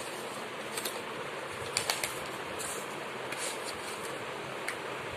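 Cardboard and a sheet of paper being handled and smoothed on a board: a few short rustles and taps over a steady background hiss.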